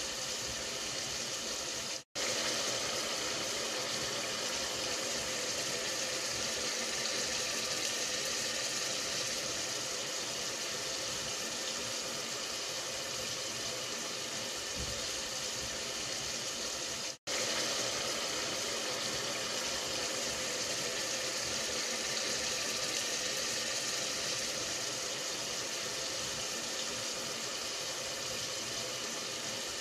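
Steady hissing noise that cuts out abruptly twice, about two seconds in and again about seventeen seconds in.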